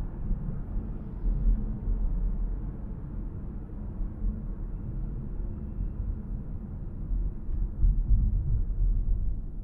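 A car driving on city roads: a steady low rumble of engine and tyre noise, swelling a little about a second and a half in and again near the end.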